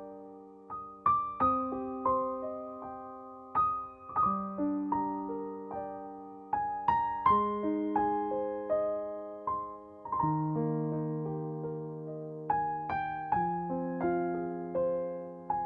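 Background music: slow, gentle piano playing soft chords and single notes that ring and fade before the next are struck.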